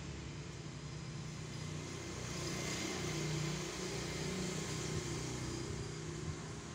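A motor running steadily, a low hum that swells a little about halfway through.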